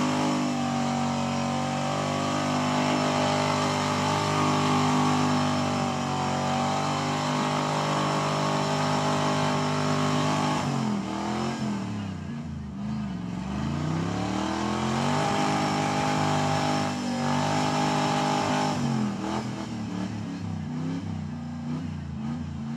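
Ford F-series pickup's engine held at high revs with its wheels spinning in deep mud. About halfway through, the revs drop and climb back up a couple of times, then hold high again before rising and falling near the end.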